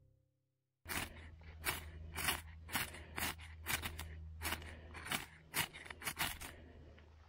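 A run of about a dozen short, sharp scraping strokes, roughly two a second, starting about a second in, over a low steady hum.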